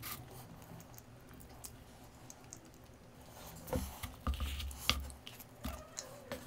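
Quiet tableware handling: a wooden spoon working in a paper dessert cup. From about four seconds in come a few clicks and soft thumps as the cup is lifted and set down on the wooden table.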